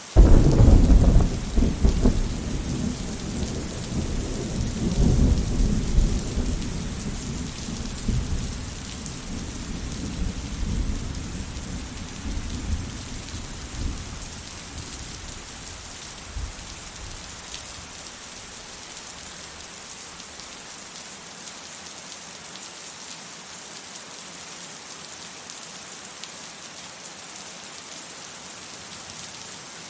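Steady rain falling with a clap of thunder that breaks suddenly at the start and rolls on in low rumbles, fading away over about fifteen seconds. Only the rain is left after that.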